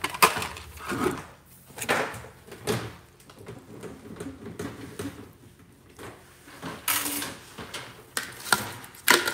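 Intermittent knocks, clicks and clatter of plastic toys and furniture being handled, with rustling in between.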